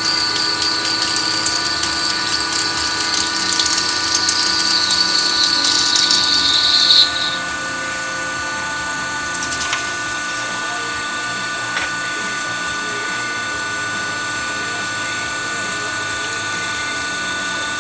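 WW2-era manual lathe running with a steady gear and motor whine. For the first seven seconds a high-pitched squeal from the cutting tool on the cylinder head slowly drops in pitch, then stops suddenly, leaving the lathe running on its own.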